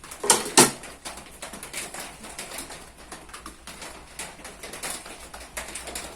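Two sharp metal clinks close together, the steel blade and its clamps knocking against the metal plate, followed by faint scattered ticks of handling.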